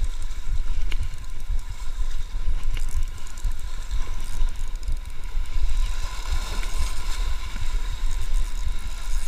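Wind buffeting a body-worn camera's microphone, a steady low rumble, over sea water washing against rocks. Under it, a small spinning reel is being cranked quickly as a hooked fish is reeled in on light line.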